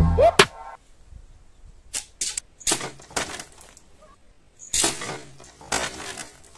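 A homemade wooden gun slingshot shooting a bamboo arrow: a series of short, sharp cracks from the rubber-band release and the arrow striking a plastic water bottle, with two louder cracks in the last two seconds.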